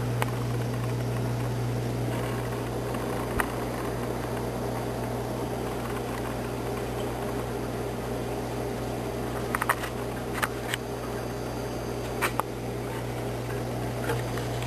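Steady low hum and hiss of reef aquarium equipment running: circulation pumps and filtration. A few brief sharp clicks stand out, several of them around ten seconds in.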